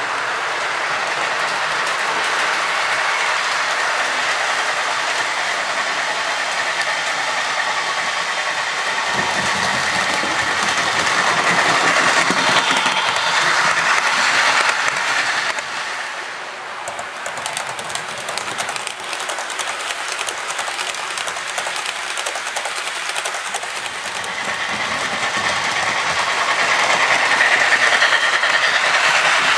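HO-scale model train running along the layout's track, its wheels clicking over the rail joints. It grows louder about halfway through and again near the end as the train comes nearest.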